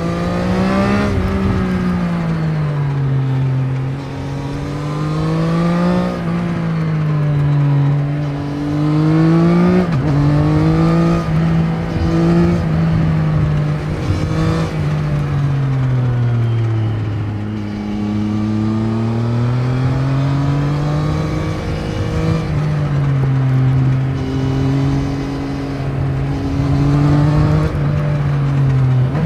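Triumph Trident 660's inline three-cylinder engine on its stock exhaust, ridden through the gears. The pitch climbs with the revs and drops sharply at each shift, several times over, with slower rises and falls as the bike slows and picks up speed again.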